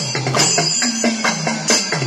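Edakka hourglass drums played fast with sticks in a thayambaka, many strokes a second. The drum's tone slides down low around the start and again near the end, bent by squeezing the lacing.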